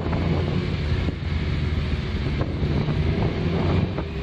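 Sport motorcycle engines running at a steady cruise, with wind noise on the microphone.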